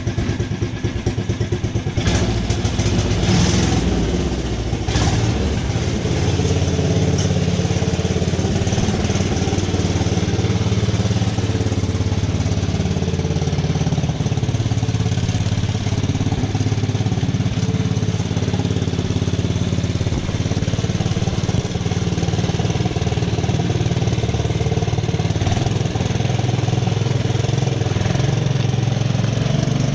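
The COOT UTV's small gasoline engine running steadily on its freshly rebuilt carburetor, getting louder about two seconds in, with a few brief clicks soon after.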